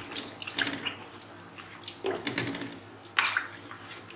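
Hands rubbing eggplants and drumsticks in a metal bowl of water: irregular sloshes and splashes, the loudest a little after three seconds in.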